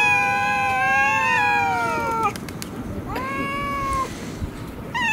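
Two cats, a long-haired tabby and a ginger cat, caterwauling at each other in a face-off: long, wavering threat yowls that slide down in pitch. One runs for over two seconds, another comes about three seconds in, and a new one starts near the end.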